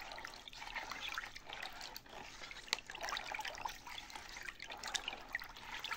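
Water swishing and trickling in a plastic bowl as it is stirred with a spatula to dissolve sugar in it, quietly, with a few light clicks.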